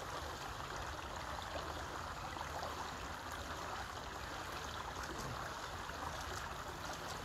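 Steady trickle of water pouring from a small spout at the pool's edge into the pool.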